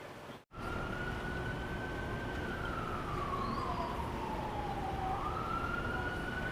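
Emergency vehicle siren in a slow wail, starting about half a second in. It holds a high tone, slides down over a few seconds and climbs back up near the end, over a low engine rumble.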